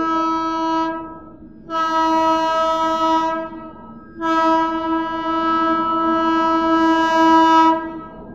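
Train horn on an approaching train sounding three times. The tail of one blast ends about a second in, a shorter blast of about a second and a half follows, then a long blast of about four seconds stops near the end. Each blast holds one steady pitch.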